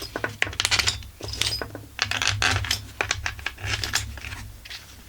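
Small metal screws clicking and clinking in quick irregular runs as they are handled and set into the chainsaw's cylinder, over a low steady hum.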